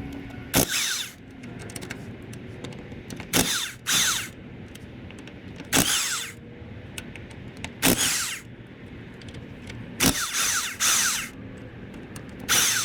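A power drill running in short bursts, about seven times, each burst ending in a falling whine. It is backing out the bolts that hold the clutch pressure plate of a Suzuki GSX-R1000.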